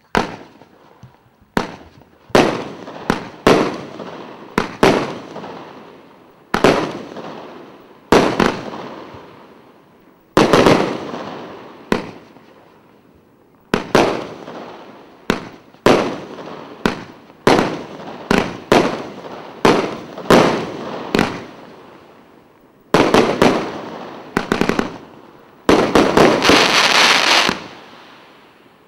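A 114-shot category 3 firework cake with 25 and 30 mm tubes firing shot after shot: sharp bangs, each with a fading echoing tail, about one or two a second, breaking into quick rapid-fire volleys in the last few seconds.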